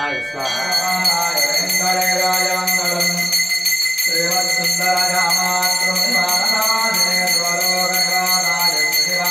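Brass hand bell rung rapidly and without pause, its ringing tones held steady, as the lamp is waved in the aarti offering. A man's voice chants beneath it in long, held, sung notes.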